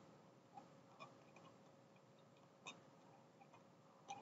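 Near silence: faint room tone with a few soft, scattered clicks, about five of them.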